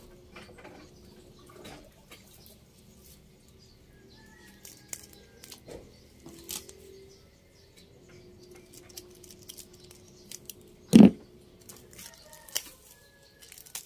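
Small clicks and rustles of string and plastic wrapping being picked and pulled off an air-layered branch's rooting ball, with one louder thump about eleven seconds in.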